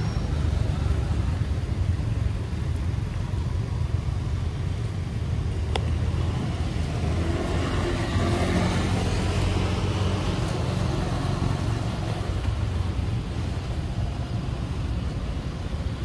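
Motor vehicle running over a steady low rumble, swelling as it passes about eight to eleven seconds in and then fading.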